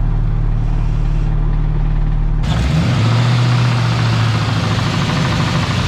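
LM7 5.3 L LS V8 engine running steadily; about two and a half seconds in it is given gas and revs up sharply, louder and higher. Under the throttle it knocks, which the owner takes for a rod knock rather than a collapsed lifter.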